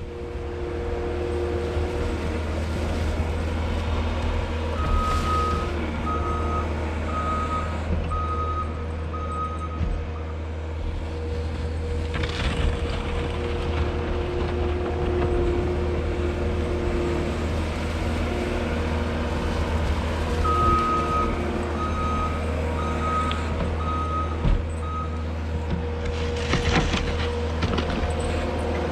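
New Holland L220 skid steer's diesel engine running steadily under load. Its backup alarm beeps in an even series twice, from about five to ten seconds in and again from about twenty to twenty-five seconds in, as the machine reverses.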